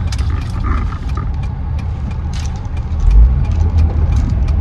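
Car driving, heard from inside the cabin: a steady low road-and-engine rumble with scattered light clicks and a heavier bump about three seconds in.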